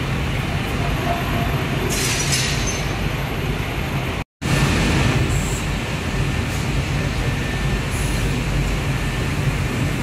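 Steady machinery hum and rumble on a glass-processing factory floor around an automatic glass cutting line and its roller conveyors, with a few brief higher-pitched noises. The sound drops out completely for a split second a little over four seconds in.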